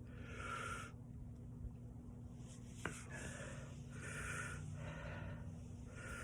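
A man breathing hard, about five heavy breaths in and out, from the burn of a very hot chili pepper. A single faint click comes about three seconds in.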